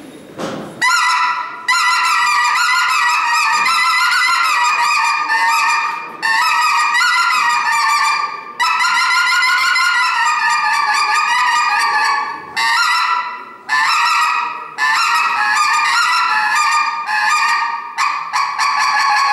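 Goose call blown in long, wavering, honking notes with short breaks between them. It starts about a second in.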